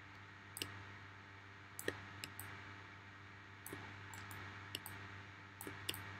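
Computer mouse clicking: about eight short, sharp clicks at irregular intervals, several in quick pairs, over a faint steady low hum.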